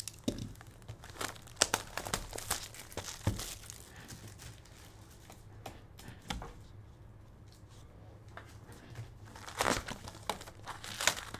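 Plastic shrink-wrap crinkling and tearing as it is stripped off a baseball card hobby box, in a quick run of crackles that dies down in the middle. A louder burst of crinkling and crackles comes near the end as the box is opened.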